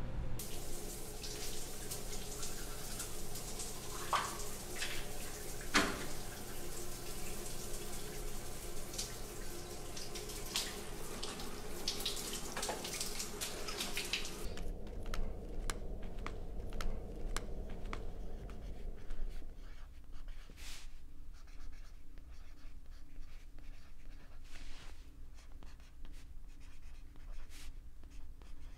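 Shower water running in a steady hiss, which cuts off suddenly about halfway through. Then comes the quieter scratch and tap of a felt-tip marker writing on paper, over a faint low hum.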